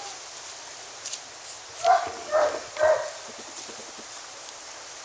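Dog barking three times in quick succession, about two seconds in.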